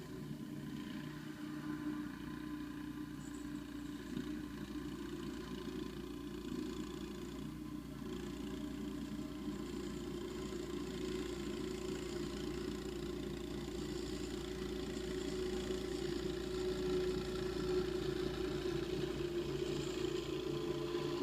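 An engine running steadily, slowly growing a little louder toward the end.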